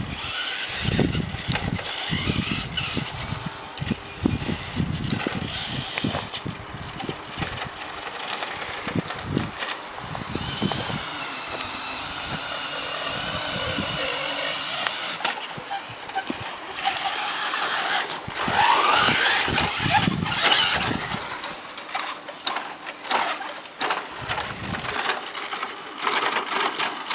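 Tamiya Bullhead radio-controlled truck being driven: knocks and rattles of the chassis over the ground in the first ten seconds or so, then the whine of its twin electric motors, rising in pitch as it speeds up about 18 seconds in.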